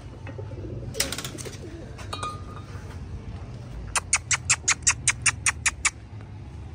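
A quick, even run of about a dozen high, squeaky chirps, some five a second, lasting about two seconds, over a steady low hum. A single knock comes about a second in.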